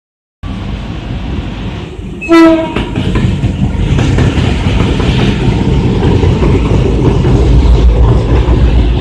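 Train running with a steady low rumble, sounding one short horn blast about two seconds in; the rumble grows louder toward the end.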